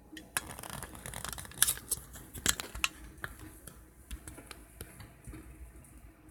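Irregular clicks and rustling from a phone being handled and turned around on its mount, with several sharper clicks in the first three seconds and softer handling after.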